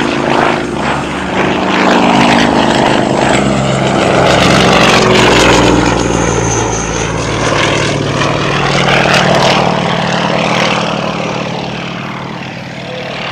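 Pitts Model 12 aerobatic biplane's radial engine and propeller running at high power through aerobatic manoeuvres, the drone's pitch bending up and down as it changes attitude and speed. It builds over the first couple of seconds, is loudest in the middle and fades toward the end as the plane draws away.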